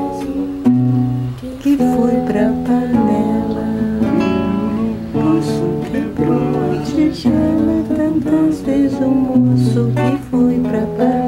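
Acoustic guitar being played, moving through a chord sequence with the chords changing about every second.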